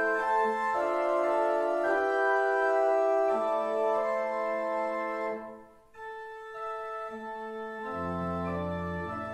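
Church organ playing in sustained held chords. About five seconds in the sound breaks off briefly and comes back softer, and near the end low pedal notes come in beneath the chords.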